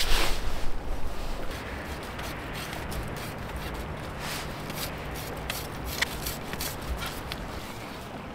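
Rustling and small clicks of hands handling fishing tackle: a plastic rig winder being unwound and line fed onto a pole tip. Louder rustling in the first second or so, then scattered light clicks.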